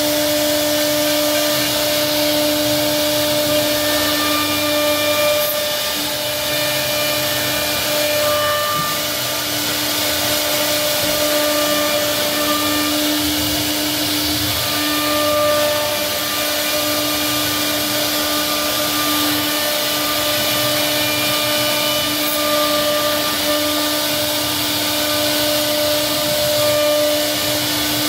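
CNC router spindle running at steady speed while its bit cuts a decorative profile groove into a solid wood panel: a constant high whine over an even hiss of cutting.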